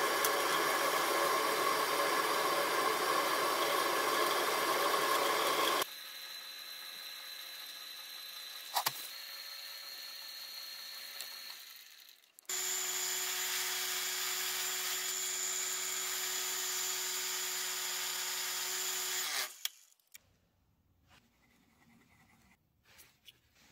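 Wood lathe spinning an epoxy-resin bowl. For the first six seconds a gouge cuts the resin with a loud, steady noise. After a sudden cut the lathe runs more quietly with a faint hum and one click, then a steady motor whine with a low hum returns for about seven seconds while the spinning bowl is worked by hand. Near the end the machine stops and only faint small handling sounds remain.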